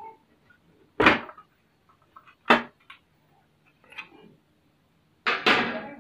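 Knocks and clatter from the metal cabinet of a Panasonic mini hi-fi system being handled as it is taken apart. Two short sharp knocks come about a second and two and a half seconds in, and a longer, louder clatter comes near the end.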